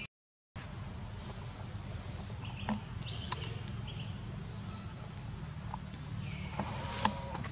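A few short, high animal chirps, some about three seconds in and more near the end, over a steady low outdoor rumble. The sound cuts out for about half a second at the very start.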